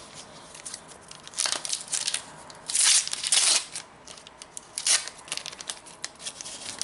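Trading card packet wrapper being crinkled and torn open, in several crackling bursts, the loudest about three seconds in.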